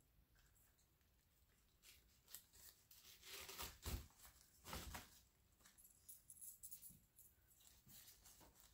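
Quiet rustling and crackling of flower stems and leaves being shifted by hand in a bouquet in a glass vase, with a soft knock, loudest between about three and five seconds in, then a few faint ticks.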